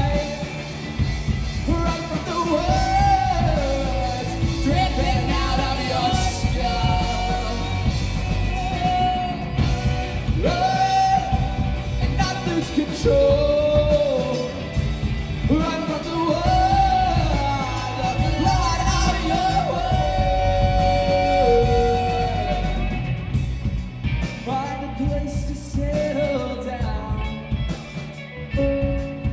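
Live alternative rock band playing with sung vocals over electric guitar, electric bass, drums and keyboard, heard through a club's room sound.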